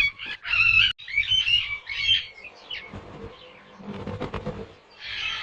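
Bird calls in a quick series of short chattering bursts, dense for the first two seconds, then fainter and sparser, with a new burst starting near the end.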